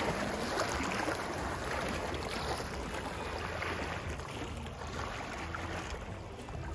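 Lake waves washing up onto the shore, a steady rush of water that eases a little toward the end, with a low rumble underneath.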